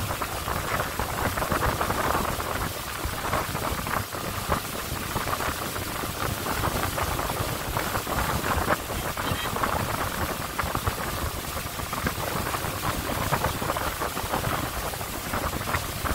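Speed boat under way on the river: a steady rush of water past the hull, without a break.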